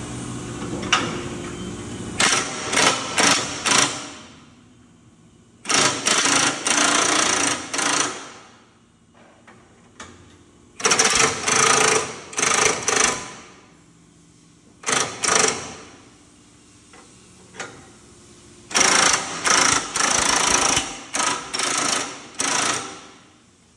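Cordless impact driver hammering in five bursts of a few seconds each, with short pauses between, as it drives the screws of a tube holder to clamp a cylinder tube.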